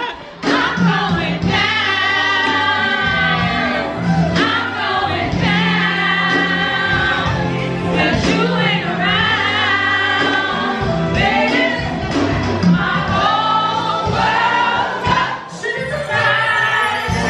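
Music with singing voices, several voices in a choir-like blend over a steady bass line.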